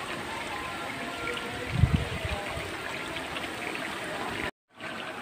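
Steady running, trickling water, with one short dull thump about two seconds in. The sound cuts out for a moment near the end.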